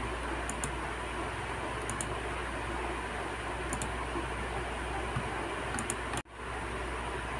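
Laptop touchpad clicked four times, each click a quick double tick of press and release, about every two seconds, over a steady hiss. The sound cuts out for an instant about six seconds in.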